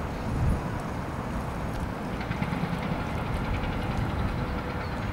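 Steady low outdoor rumble of distant city traffic, with a faint engine hum and wind buffeting the microphone.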